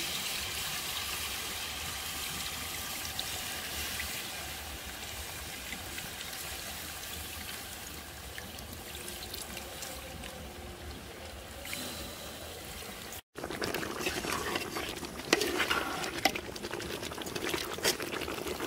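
Tamarind water trickling and pouring from a steel bowl into a steel pot of fish curry as the pulp is squeezed by hand. About thirteen seconds in the sound breaks off, and a louder stretch follows with a few sharp clicks of a spoon in the pot.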